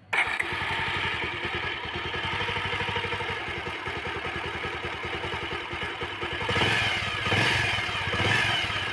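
Bajaj Pulsar 150's single-cylinder four-stroke engine idling with an even, rapid firing beat, then revved with about three throttle blips in the last few seconds.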